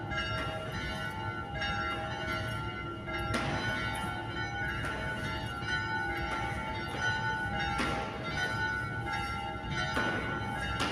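The two 1922 Daciano Colbachini church bells, the large one in E and the small one in F-sharp, rung by rope in the Friulian 'parie', heard from inside the church below the belfry. Fresh strokes come about every one and a half to two seconds, and the bells ring on between them.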